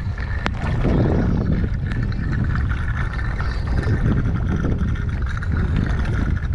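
Gasoline pouring from a plastic jerry can's spout into a small outboard motor's fuel tank: a steady gurgling pour that starts about a second in, under heavy wind buffeting the microphone.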